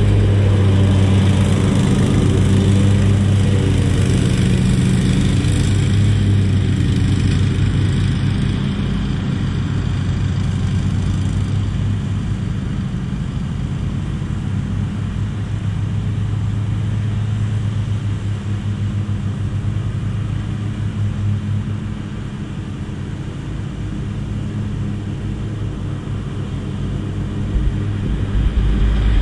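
Zero-turn riding mower's engine running at steady mowing speed. It is loudest as the mower passes close at the start, fades as it drives away across the lawn, and grows louder again near the end as it heads back.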